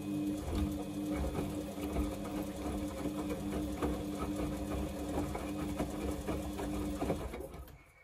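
Samsung front-loading washing machine's drum turning during a wash cycle. A steady motor hum runs under small knocks and swishing from the wet whites tumbling, and it stops about seven seconds in as the drum comes to rest.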